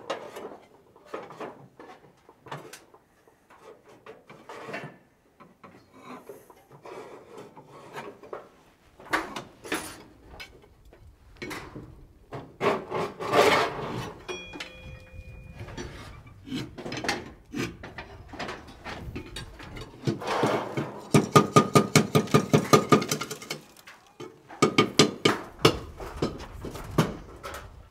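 Slate being trimmed to shape by hand with a slater's hammer over an iron slater's stake: scattered scraping and chipping taps, then a fast run of about eight taps a second some twenty seconds in, followed by a few more taps.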